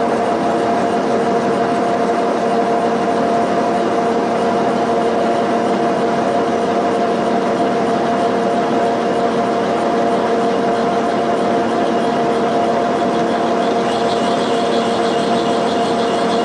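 Machine spindle turning a piloted spring-pocket cutter through a cast iron cylinder head, a steady whine with the gritty noise of the cast iron being cut. The cutting noise gets brighter near the end.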